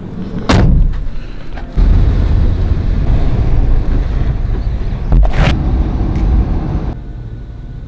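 Dirt bike engines running loud and close as riders go past, with two sharp loud knocks, one near the start and one about five seconds in.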